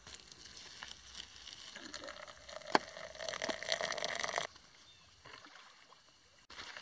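Hot water poured from a kettle into bowls of oats and a metal mug with a tea bag, a splashing trickle that grows louder, with one sharp click about three seconds in. The pouring stops abruptly about four and a half seconds in, leaving faint outdoor quiet.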